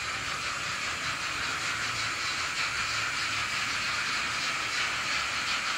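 Sound decoder of an N-scale model of steam locomotive 41 001 playing a steady steam hiss through its small speaker as the model runs.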